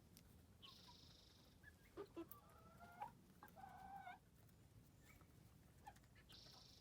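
Young chickens, about twelve weeks old, making faint soft calls. The main call is a short wavering trill lasting about two seconds, starting about two seconds in, with a few light clicks around it and a thin high tone near the start and again near the end.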